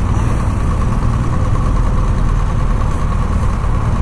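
2018 BMW R1200GS Adventure's boxer-twin engine running steadily near idle as the bike rolls at walking pace.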